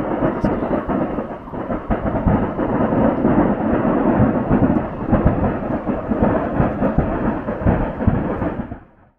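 Fireworks display going off close by: many overlapping bangs merging into a continuous rumble, fading out near the end.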